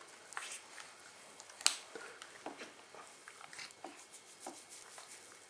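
Faint, scattered small splashes and drips of bath water in a plastic baby bath as a baby kicks and hands move the water, with one louder splash about a second and a half in.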